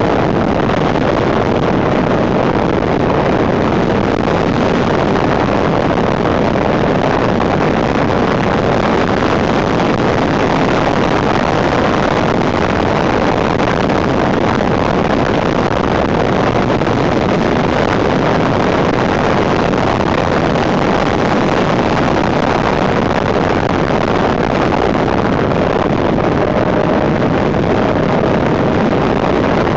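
Steady wind noise buffeting the microphone of a handlebar-mounted camera on a motorcycle at road speed, with the 1991 Suzuki GSX750F Katana's inline-four engine buried under it.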